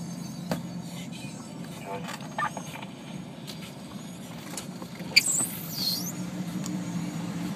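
Chevy 2500 HD tow truck driving, its engine a steady low drone. About five seconds in there is a sharp click and a short high squeal that falls in pitch.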